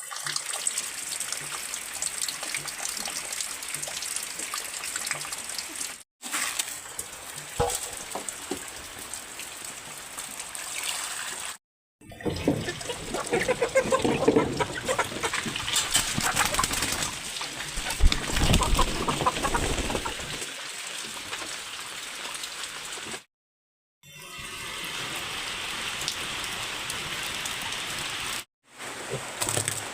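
Steady rain falling, heard in several short clips with abrupt cuts between them.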